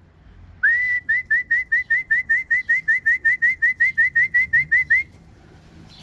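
A person whistling to call racing pigeons down into the loft: one longer rising note, then a fast run of short, upward-flicking whistles, about five a second, that stops about a second before the end.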